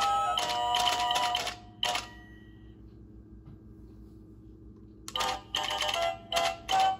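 Hallmark Happy Tapper figurines playing a tinny electronic Christmas tune with the clicking of their tapping feet. The tune ends about a second and a half in, and after a pause of about three and a half seconds the next song starts with more tapping clicks.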